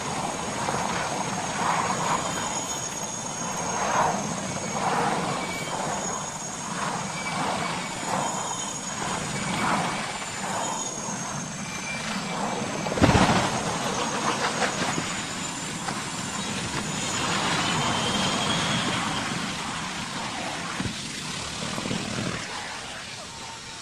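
Aircraft noise with a high, slightly wavering whine over a steady rumble, broken by one loud impact about halfway through.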